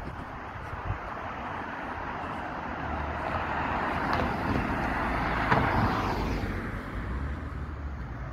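A car, a white SUV, driving past close by: its tyre and engine noise swells to a peak about halfway through and then fades away, over the steady rumble of street traffic.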